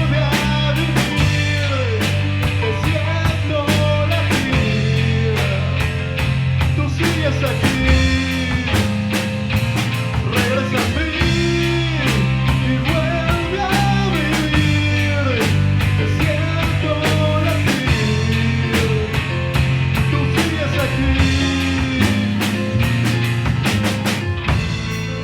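Live rock band playing an instrumental passage: a drum kit keeping a steady beat, a bass holding low notes that change every second or two, and a guitar playing a lead line with bending notes.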